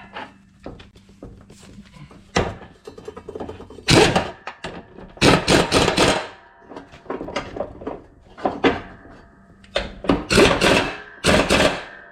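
Irregular metal clunks, knocks and scraping of hand-tool work on a riding lawn mower as a blade bolt is tightened down, coming in clusters with short gaps between them.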